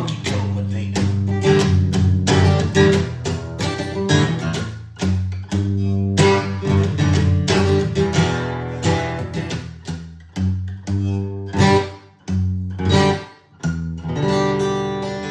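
Guitar strummed in a steady run of chords, with two brief dips in loudness near the end.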